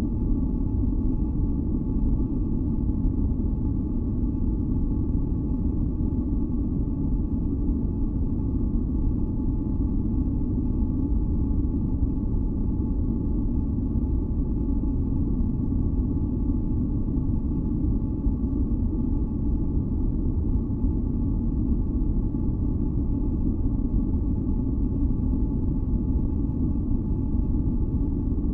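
Steady deep masking noise, weighted to the low end like a distant rumble, with a faint hum of a few steady higher tones above it and no change throughout.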